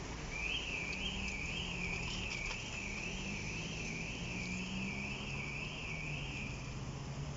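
Level crossing audible warning alarm, a high yodelling tone that warbles up and down about twice a second and cuts off near the end, with a low hum beneath it.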